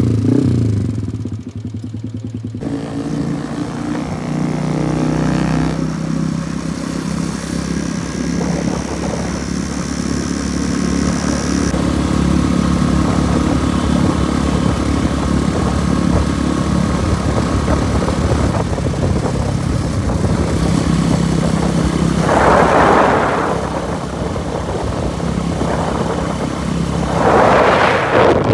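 Motorcycle engine running steadily while riding, with two brief louder rushes of noise near the end.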